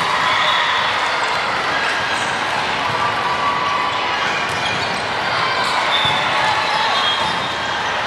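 Indoor volleyball rally in a large gym: the ball being struck now and then, over a steady mix of players' and spectators' voices.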